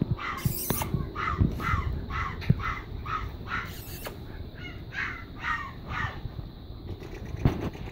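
An animal calling over and over, about two short calls a second, pausing briefly halfway and stopping about six seconds in, with a few dull thumps beneath.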